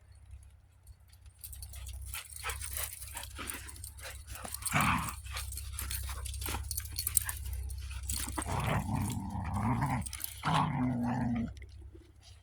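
Puppies playing in snow: scuffling and crackly rustling, with dog vocal sounds about five seconds in and a longer stretch of them from about eight to eleven seconds.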